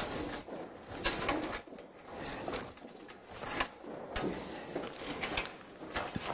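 Pigeons cooing, with scattered clicks and knocks from the metal hoist ladder as it is hauled upright.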